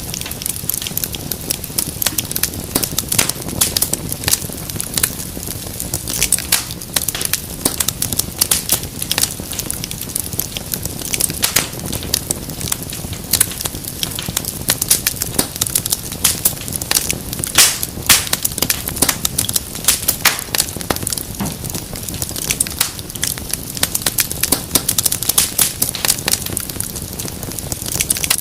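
Wood fire in a fireplace crackling, with many irregular pops and snaps over a low, steady rumble of the flames.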